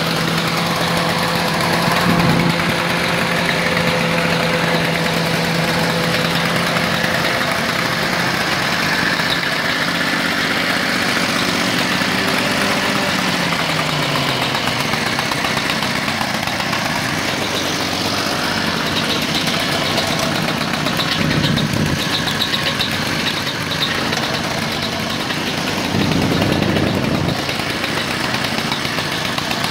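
Several Victa two-stroke lawn mower engines running together at idle, loud through their mufflers. Partway through, one engine slows, its pitch falling, and stops as it runs out of its small charge of fuel.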